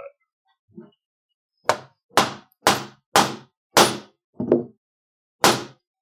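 Yellow poly mallet striking a steel belt end punch, seven sharp blows about two a second with a short pause before the last, driving it through thick 16 oz harness leather onto a poly board to cut the belt's tip end.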